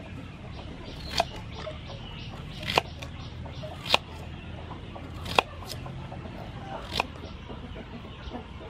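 Kitchen knife slicing an onion and knocking on a wooden chopping board, five separate knocks about a second and a half apart.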